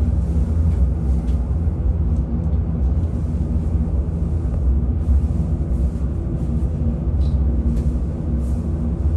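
Trümmelbach Falls' glacial meltwater crashing through its rock chasm inside the mountain: a loud, steady, deep rumble.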